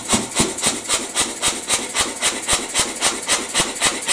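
Reiter KB1 pneumatic power hammer's compressor running under power, clacking evenly at about four strokes a second as the freshly fitted spring-loaded valve ring lifts and seats with each piston stroke; the machine is switched off and stops abruptly at the end.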